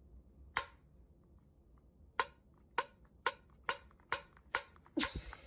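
A finger clicking the pull-ring of a small tin can, about nine sharp clicks, the first two widely spaced and the rest coming about twice a second.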